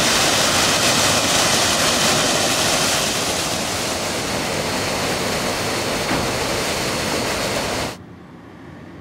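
Fountain water pouring off a ledge into its basin: a steady rush of splashing water. It gets a little quieter about three seconds in and cuts off abruptly near the end.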